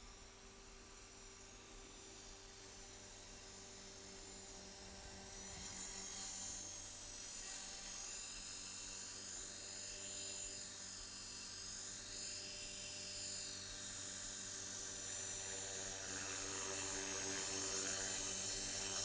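Align T-Rex 450 Pro electric RC helicopter flying: a high, steady whine from its motor and drivetrain with rotor noise. The pitch swings up and down several times around the middle, and the sound grows louder toward the end as the helicopter comes in close over the grass.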